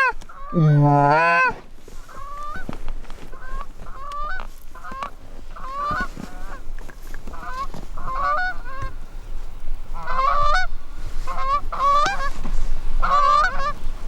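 Canada geese honking, many short honks overlapping, getting louder toward the end. It opens with two long, low drawn-out calls in the first second and a half.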